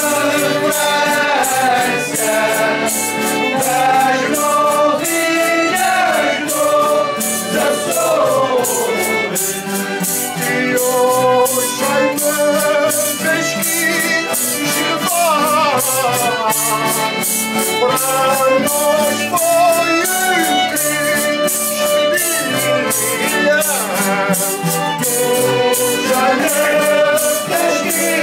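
A folk group singing together in chorus, with instruments and a steady percussive beat.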